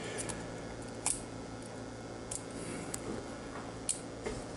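Scattered, irregular sharp clicks from a Copal mechanical 35mm camera shutter assembly as its levers and mode selector are worked by hand, switching it into bulb exposure mode.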